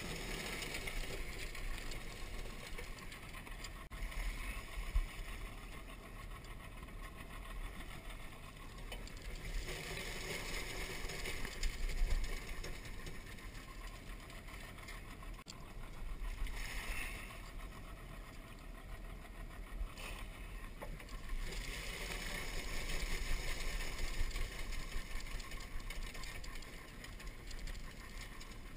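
Crawfish traps being handled at the side of a skiff in floating water hyacinth: rustling and scraping that swells and fades every few seconds, with scattered knocks of the wire-mesh traps against the boat, loudest about five and twelve seconds in.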